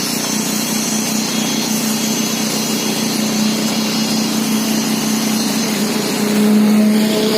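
Vehicle engine running steadily while driving, under a constant hiss of rain and wind. About six seconds in, the engine note grows louder.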